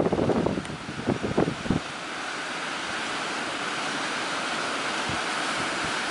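Wind buffeting the microphone unevenly for the first couple of seconds, then a steady rush of sea surf and wind.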